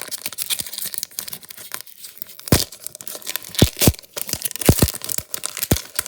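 Pokémon booster pack being handled: the foil wrapper crinkling and crackling while trading cards are shuffled, with several sharp clicks in the second half.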